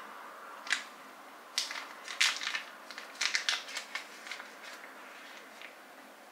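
Small plastic spatula spreading a thick cream face mask over skin: a dozen or so short, irregular sticky crackling scrapes.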